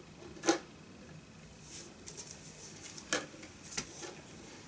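A few soft taps and rustles from a vinyl single in its paper picture sleeve being handled and set down.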